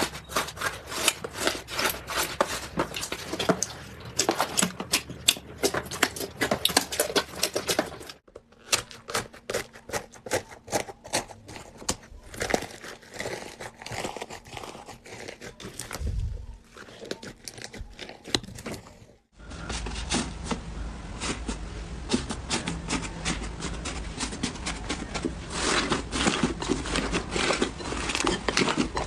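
Slime being squished and pressed by hand, giving dense, irregular crackling and popping clicks. The sound changes abruptly twice, about 8 and 19 seconds in, where separate clips are cut together.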